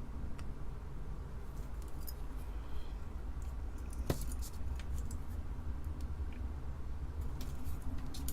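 Scattered light clicks and taps from handling a circuit board and soldering tools, the sharpest about four seconds in, over a steady low hum.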